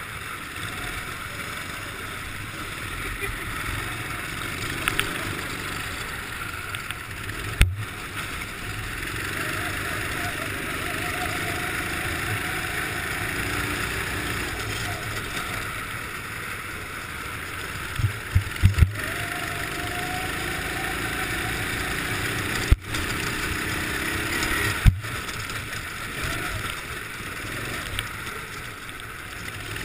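Racing kart's engine running under load on an ice track, heard onboard, its pitch rising and falling with the throttle over a steady rush of wind and tyre noise. Several sharp knocks come through, once about eight seconds in and a cluster in the second half.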